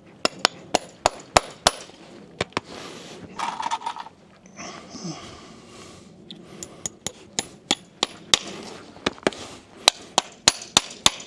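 Farrier's driving hammer tapping horseshoe nails into a horse's hoof wall, nailing on a front shoe. The strikes come in quick runs of about three a second, pause midway, then come faster and louder near the end.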